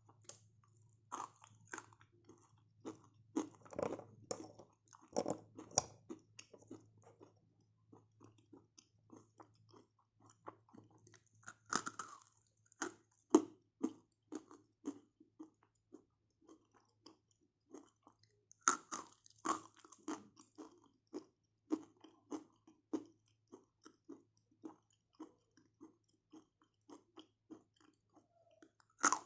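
A person biting into and chewing dry, earthy clay close to the microphone. Sharp, crisp crunches, with a louder bite every several seconds and rapid quieter chewing crunches between.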